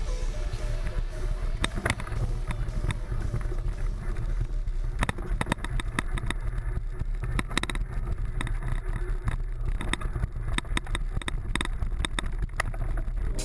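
Mountain bike riding fast over a rough dirt trail: wind rumbling on the bike-mounted camera's microphone, with frequent sharp rattles and knocks from the bike jolting over bumps, more of them from about five seconds in.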